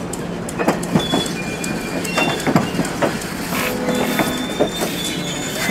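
Passenger train cars rolling past close by: wheels clicking and knocking irregularly over the rails, with a few faint, thin, high-pitched wheel squeals.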